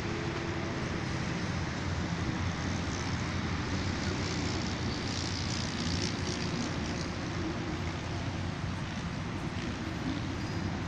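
Steady motor-vehicle traffic noise with a low engine hum running underneath.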